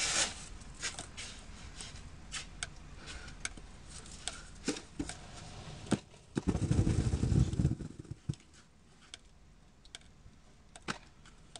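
Snow shovel scraping and clicking on a concrete walk in short, irregular strokes. About six seconds in, a load of snow comes down off the roof with a low rumbling thump lasting about a second and a half.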